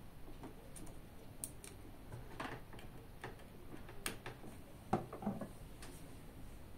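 Scattered small clicks and taps of an Orange Pi 3 LTS single-board computer being handled and plugged up, its connectors and card pushed in by hand. The clicks come irregularly, the loudest about five seconds in, followed by a few quicker ones.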